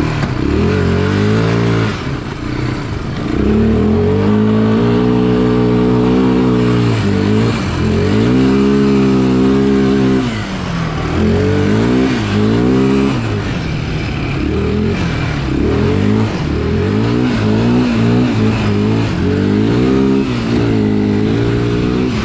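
ATV engine revving up and easing off over and over under load as the four-wheeler spins donuts, in a few long surges and then quicker, shorter ones.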